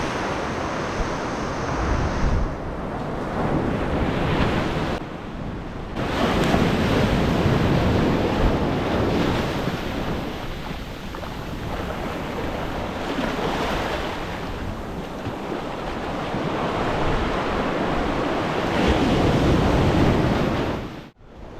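Ocean surf breaking on the beach, rising and falling every few seconds, with strong wind buffeting the microphone.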